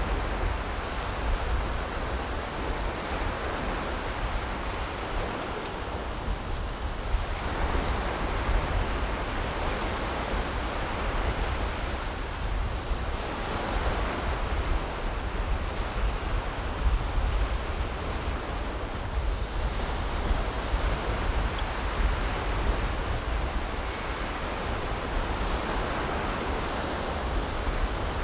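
Surf washing onto a sandy beach, swelling and easing every few seconds, with wind buffeting the microphone as a steady low rumble.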